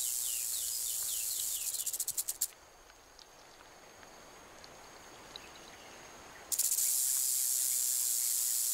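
Rattlesnake shaking its tail rattle as a warning. A high, dry buzz breaks into separate clicks and stops about two and a half seconds in, then starts again about six and a half seconds in.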